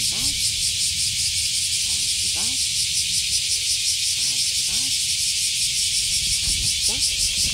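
Insect chorus: a steady, shrill, finely pulsing hiss, with a low rumble underneath.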